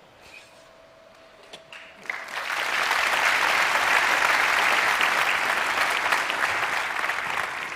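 Large theatre audience applauding. The clapping breaks out about two seconds in, swells, holds, and thins out near the end; before it there is only a faint steady tone.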